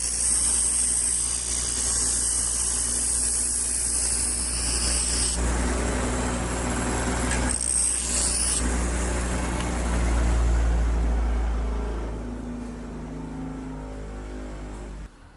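Power tool grinding steel on a knife blank, with a steady motor hum under a loud hissing grind. The grinding is strongest for about the first five seconds and again briefly near the middle, then eases off, and the machine stops near the end.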